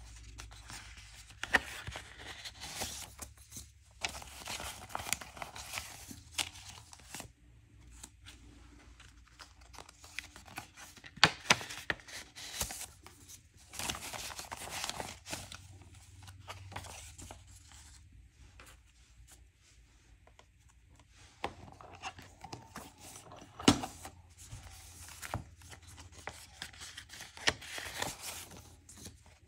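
Paper banknotes and envelopes being handled: bills pulled out, rustled and flicked through as they are counted. The rustling comes in irregular bursts with a few sharper snaps.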